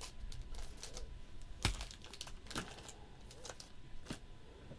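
Irregular light clicks and crinkling rustles of objects being handled, with one sharper click about a second and a half in.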